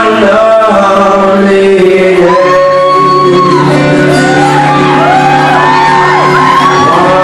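Live solo acoustic song: a man singing long held notes into the microphone over acoustic guitar, with shouts and whoops from the audience in a large hall.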